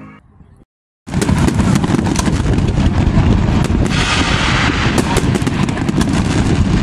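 A few fading notes of music and a brief gap, then from about a second in a loud fireworks display: a dense, continuous barrage of bangs and crackling with a heavy low rumble.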